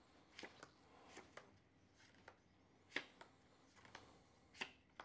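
Faint taps and slides of playing cards being dealt face up onto a table, a handful of soft clicks with the loudest about three seconds in and another near the end.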